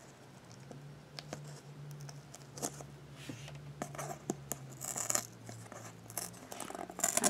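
Fingernails picking and scraping a lump of hardened hot glue off a cardboard surface: scattered small clicks and scratches, with a faint low hum underneath.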